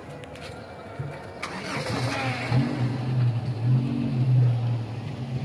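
A vehicle engine starts about a second and a half in and settles into a steady idle.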